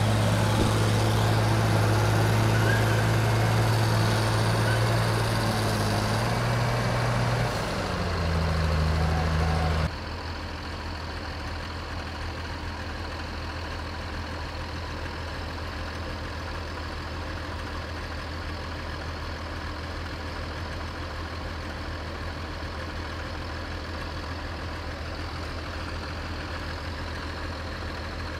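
Heavy diesel engine of a loaded logging truck running hard with a deep steady note that drops in pitch about seven seconds in. About ten seconds in the sound cuts abruptly to a quieter, steady engine idle.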